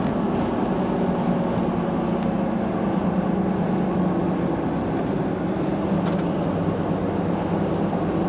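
Steady engine hum and road noise inside the cabin of a Jeep Gladiator cruising along the highway.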